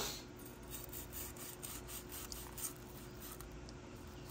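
Kitchen knife sawing through the crisp panko crust of a fried mahi-mahi piece on a wooden cutting board: a short knock as the blade goes in, then faint, repeated rasping strokes.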